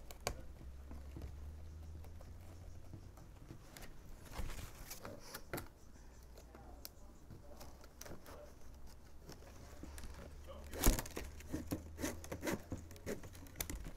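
Plastic baling straps rustling, scraping and clicking as they are threaded and pulled through a woven strap basket, with a sharp snap about eleven seconds in and a run of quick clicks after it.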